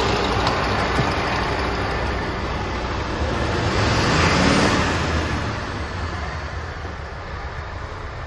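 Scania P230's 230 hp turbo diesel engine idling steadily, with a broad rushing noise that swells about four seconds in and then eases off.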